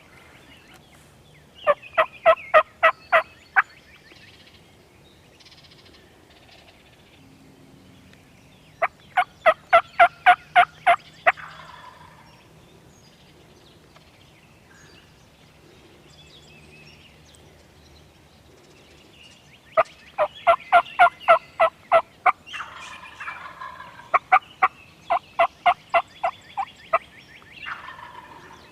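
Turkey yelping: four runs of evenly spaced, pitched yelps, about seven to nine notes in each run.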